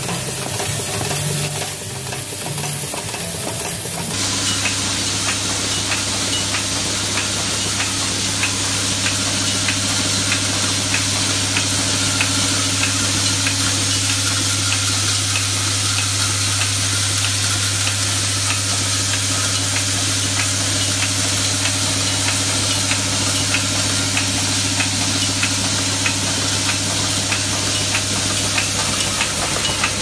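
Vibratory bowl feeder running with a steady low electromagnetic hum, the metal zipper slider parts in the bowl rattling and hissing as they shake along the track, with light regular ticking. A different mix of machine noise gives way to this hum about four seconds in.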